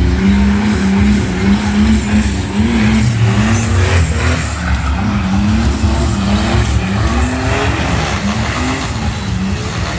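Car engine revving hard again and again, its pitch rising and falling over a deep rumble.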